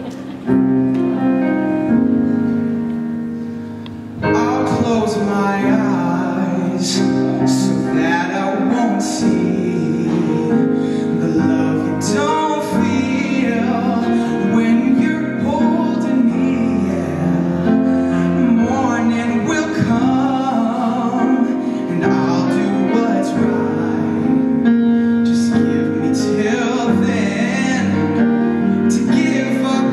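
Grand piano playing a slow ballad accompaniment, with a male solo voice entering about four seconds in and singing long, sustained phrases over it.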